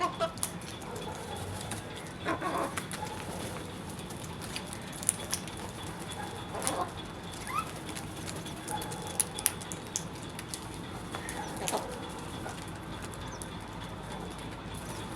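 Scattered short bird calls over a steady background hiss, with a few sharp taps now and then.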